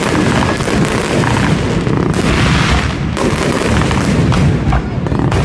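Aerial fireworks going off in a dense, unbroken run of overlapping booms, with several louder bursts carrying crackle into the highs.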